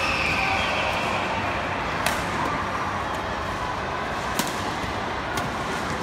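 Badminton rally: rackets striking a shuttlecock in three sharp, separate hits over the steady background noise of an indoor sports hall.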